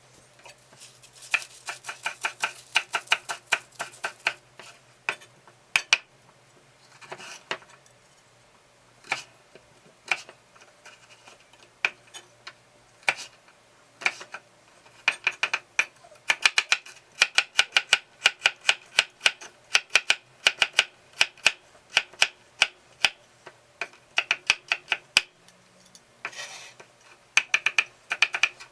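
Kitchen knife chopping food on a cutting board: quick runs of sharp strikes, several a second, broken by short pauses.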